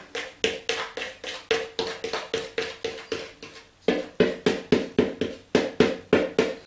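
A utensil clinking against a glass mixing bowl, about four to five strokes a second, as dry flour and salt are stirred together; each stroke rings briefly. The strokes get louder a little past halfway through.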